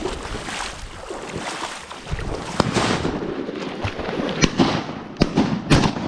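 Steady rushing noise with a series of sharp clicks and knocks that come more often in the second half.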